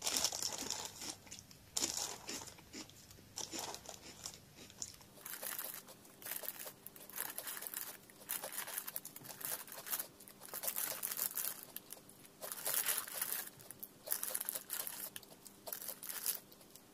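Crinkling of a Chocobi snack bag and crunching of the chocolate corn puffs being chewed, in irregular bursts. From about five seconds in the sound plays at double speed.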